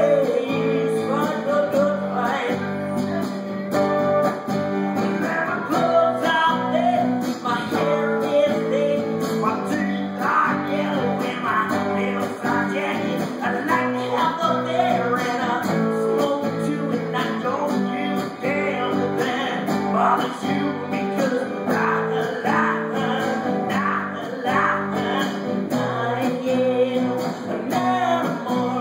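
Live guitar-based music played without a break: a duo's set, with strummed guitar carrying the song.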